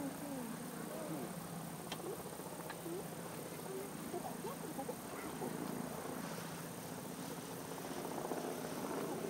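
Outdoor ambience of scattered, indistinct chatter from a distant crowd, over a steady high insect drone.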